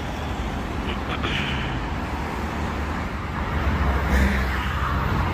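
Steady road traffic noise from a busy multi-lane avenue, with a louder low rumble swelling about four seconds in as a vehicle passes.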